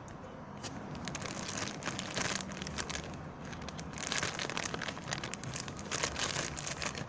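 Thin plastic bag crinkling and rustling as it is handled and opened, in irregular crackly bursts.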